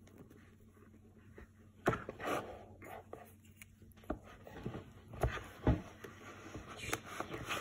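Quiet handling of a plastic sand mold in kinetic sand in a plastic tray: soft scraping with several sharp plastic taps, the loudest a little past halfway.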